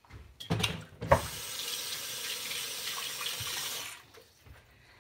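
A couple of sharp knocks as something is set down in a kitchen sink, then the faucet runs steadily for about three seconds and is turned off.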